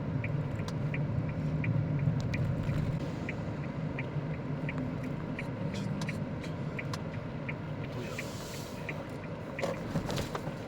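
Road rumble inside a moving car's cabin, with the turn-signal indicator ticking about twice a second. A short hiss comes about eight seconds in.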